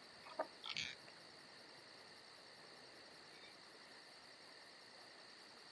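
Near silence with a faint, steady high-pitched cricket trill, and two soft brief sounds in the first second.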